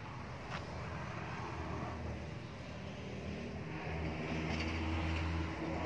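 Faint, steady low engine hum in the background, growing a little louder over the last two seconds, with one light tick about half a second in.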